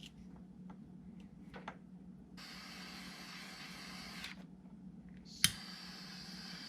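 Aerosol can spraying grease onto a wire connection: two hissing bursts of about two seconds each, with a sharp click just before the second.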